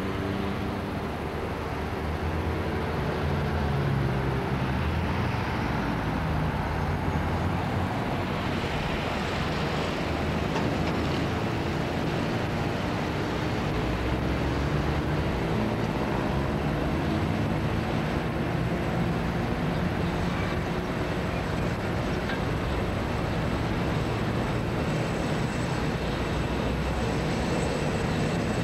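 NSW 81 class diesel-electric locomotive running as it approaches at the head of a coal train: a steady, loud diesel engine drone whose pitch wavers slowly, over a rumbling haze of train noise.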